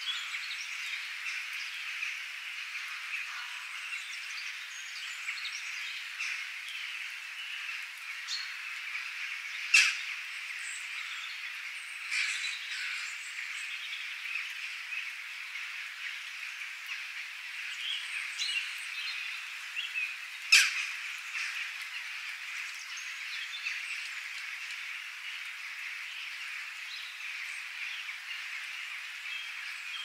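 Gentle steady rain with a dense chorus of high chirping calls throughout, and two louder, sharp calls about ten and twenty seconds in.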